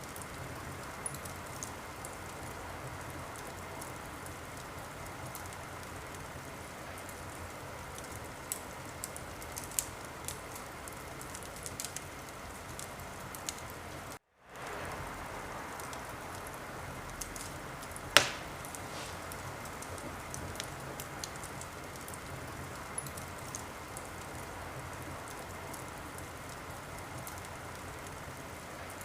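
Wood fire crackling steadily, with scattered sharp pops and one loud pop about halfway through. The sound cuts out completely for a split second a little before that.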